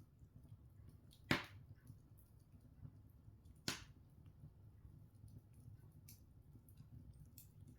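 Open wood fire crackling softly, with two sharp pops from the burning logs about a second and a half in and again a couple of seconds later.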